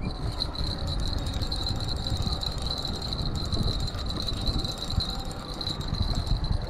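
Spinning reel being cranked steadily, its gears giving a continuous high whirring whine that pulses with the turns of the handle, with wind rumbling on the microphone.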